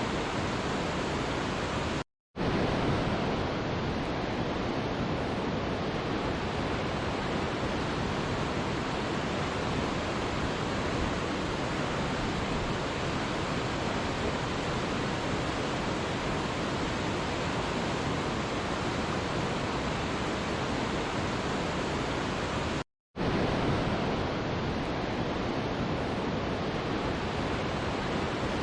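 Waterfall: a steady, even rush of falling water. It drops out to silence for a split second twice, about two seconds in and about five seconds before the end, as if the recording were looped or spliced.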